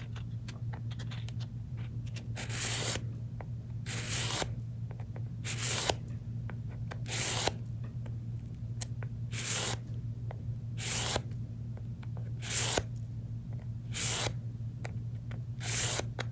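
Disposable paper trimmer blade, in its plastic carriage, drawn along the edge of a sanding sponge block: about nine short, scratchy rasps, one every second and a half or so. The dull blade is being sharpened by rubbing it on the abrasive.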